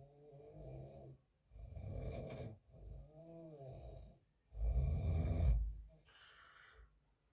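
A sleeping man snoring: a run of snores about a second and a half apart, one with a wavering whistle-like tone, the loudest about two-thirds of the way in, then a softer breath and quiet.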